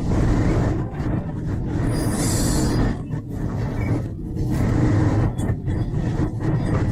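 Strong storm wind blowing across the microphone: a continuous low rumble that rises and falls in gusts, with a brief hiss about two seconds in.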